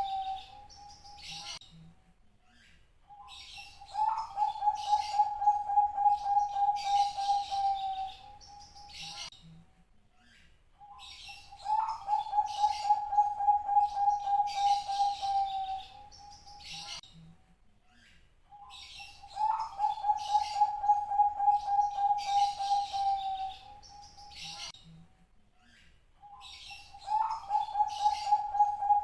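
Zebra dove (perkutut, Bangkok strain) singing: repeated cooing phrases about every eight seconds, each opening with a short rising note and running on for about four seconds as a fast, even string of purring coo notes.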